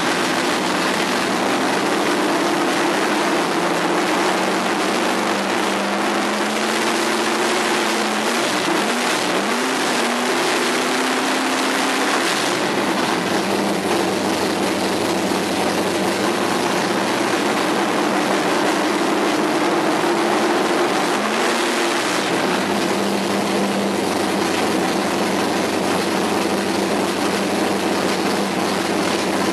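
Drag-racing 440 cubic-inch Mopar big-block V8 with a 600-lift roller cam, running extremely loud. It is held at raised revs with the pitch shifting and gliding between about 7 and 12 seconds in and again around 21 seconds, and it sounds smooth at the higher RPM.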